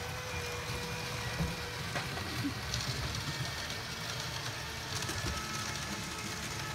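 Hornby OO-gauge A4 Mallard model locomotive running round its track with its coaches: a steady motor hum over the rumble of wheels on the rails, with a few faint clicks.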